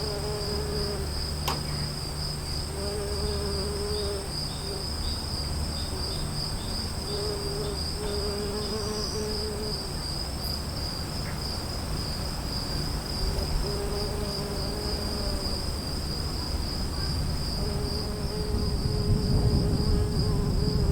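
Outdoor insect chorus of crickets, with a steady pulsing high trill, and a low wavering call repeated every few seconds. Near the end a low rumble of distant thunder swells as the storm approaches.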